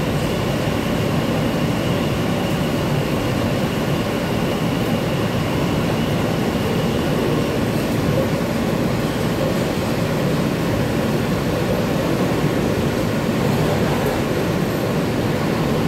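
Interior of an R160 subway car running between stations: a steady rumble of wheels and car. A faint high tone fades out about halfway through.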